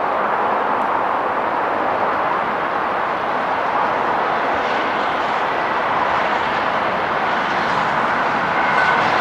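Steam locomotive 60163 Tornado, a three-cylinder LNER A1 Pacific, working a long train of coaches past at speed: a steady rushing noise of exhaust and wheels on rail, with no separate exhaust beats standing out.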